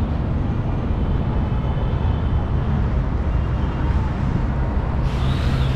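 Steady road-traffic noise from a busy city street, a continuous low rumble of passing vehicles with faint voices of passers-by. About five seconds in, a brighter hiss joins, as a vehicle draws closer.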